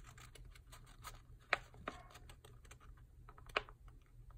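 Fingernails clicking and tapping on paper as a sticker is peeled and pressed onto a planner page: light, scattered clicks, with two sharper taps, one about a second and a half in and one near the end.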